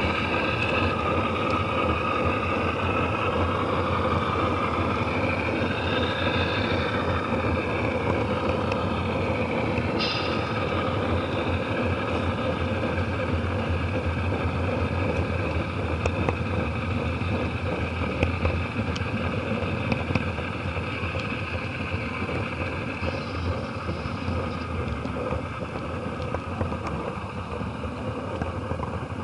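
Model freight train running along its track, heard from a car riding on it: a steady rumble of wheels on rail with fine rapid clicking, and a high whine that wavers in pitch through the first several seconds.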